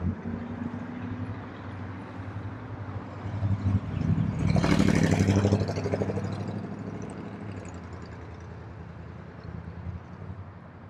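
A motor vehicle drives past on the street: engine hum and road noise rise to a peak about five seconds in, then fade away.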